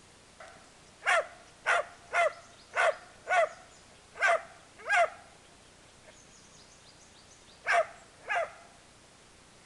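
Dalmatian barking angrily: a run of seven sharp barks, then two more after a pause of about two seconds.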